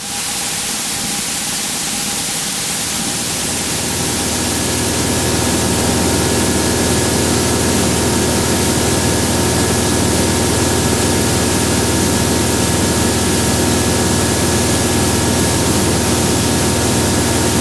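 Remos GX light sport aircraft's Rotax 912 engine and propeller running steadily at full throttle in a climb, heard inside the cockpit as a constant drone with a few steady tones over a wash of wind noise. It fades in at the start and grows slightly louder over the first few seconds.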